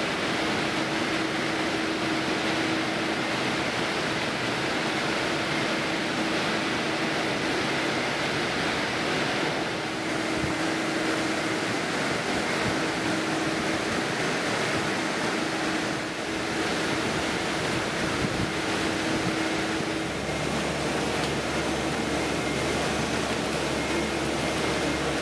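N&N Mixer Cooker 1600S running, its mixing paddles stirring a batch as it heats: an even rushing machine noise with a faint steady hum, which gives way to a lower hum about twenty seconds in.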